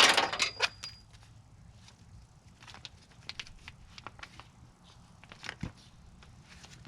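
Clinks and rattles of metal tailgate hardware being handled, a quick cluster in the first second followed by scattered light taps and clicks.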